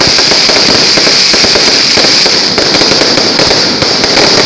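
Fireworks going off in a dense, continuous barrage of rapid crackling bangs with no pause.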